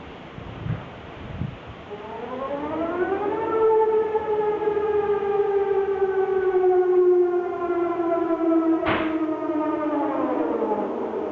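Outdoor civil-defence warning siren sounding in the annual siren test. It comes in about two seconds in, rises in pitch over a second or so, holds a steady chord of several pitches, then begins to fall near the end. A sharp click sounds about nine seconds in.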